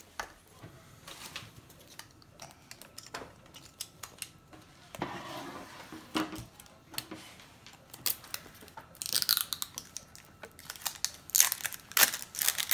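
Toy packaging being unwrapped by hand: scattered crinkling, rustling and tearing. It gets denser and louder over the last few seconds.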